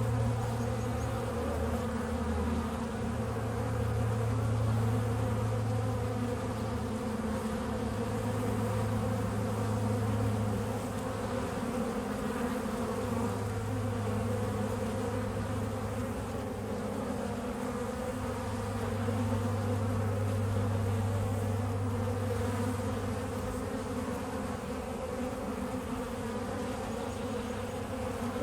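Honeybees buzzing, a steady low hum of many wingbeats that swells and eases every few seconds.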